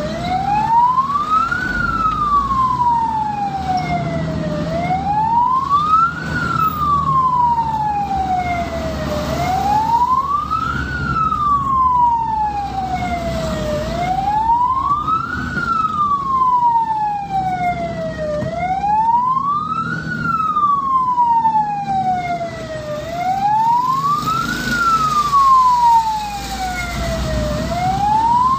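Ambulance siren in a slow wail: each cycle rises quickly and falls more slowly, repeating about every four and a half seconds, over a low rumble of engine and road noise.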